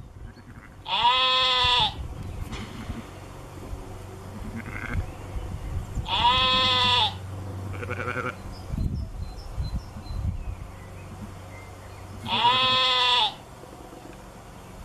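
An animal bleating: three loud calls of about a second each, roughly five to six seconds apart, each holding a fairly even pitch that dips slightly at the end, with two fainter calls in between.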